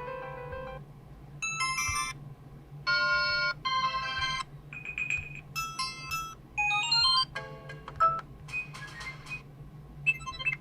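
ASUS Zenfone Zoom ringtones previewed one after another through the phone's speaker. About ten short electronic melody snippets, each different and each cut off after under a second, play over a faint steady low hum.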